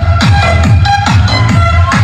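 Electronic dance track with a heavy, punchy bass beat, played loud through a pair of Titanium Audio Maxx 15 passive speakers in an audio test.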